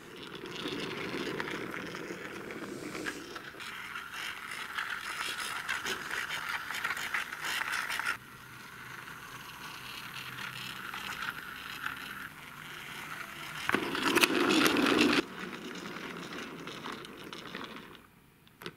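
Toy semi-truck with a car-carrier trailer pushed by hand, its plastic wheels rolling and rattling along the floor. The rolling noise drops suddenly about eight seconds in and is loudest for a moment a little past two-thirds of the way through.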